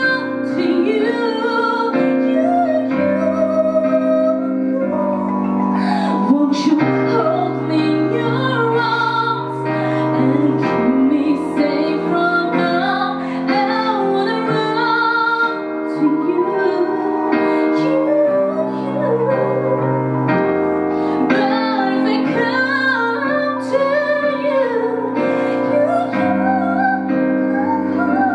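A woman singing a slow ballad into a microphone, accompanying herself with held chords on a Korg digital piano.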